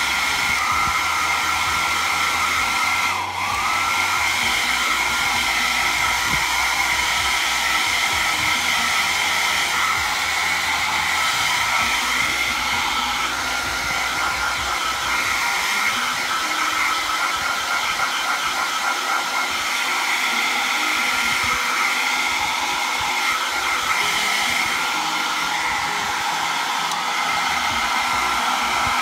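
Handheld electric hair dryer blowing steadily on a wet kitten's fur, an even rush of air with a steady whine. About three seconds in it dips briefly, and its whine slides back up.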